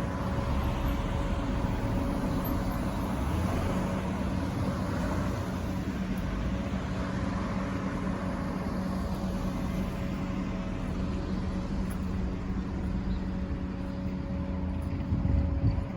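Steady mechanical hum with a low rumble, like an idling engine or running machinery.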